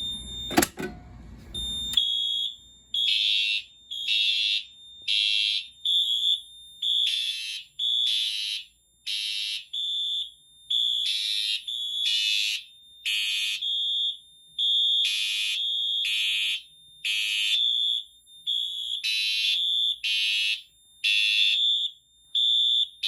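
Fire alarm horn strobes, a Siemens horn strobe and a Wheelock MT, sounding in the temporal code 3 pattern: loud, high-pitched horn blasts in groups of three, starting about two seconds in after a sharp click or two from the pull station being operated.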